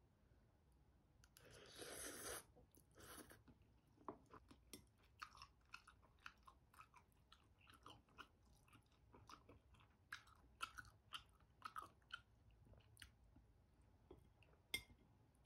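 Faint close-up eating sounds of spicy flat glass noodles: a slurp about two seconds in and a shorter one after, then soft, irregular chewing clicks.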